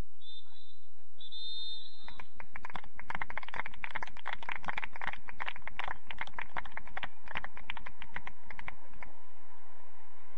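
A referee's whistle blown twice, the second blast longer, then scattered clapping from spectators lasting about seven seconds.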